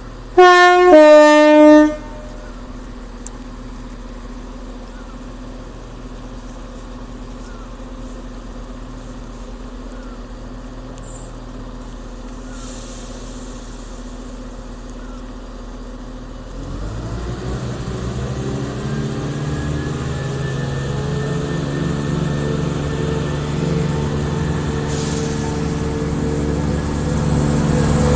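Class 170 Turbostar diesel multiple unit sounding its two-tone horn, a higher note then a longer lower one. The engines then idle steadily before powering up about 16 seconds in, building louder as the train pulls away.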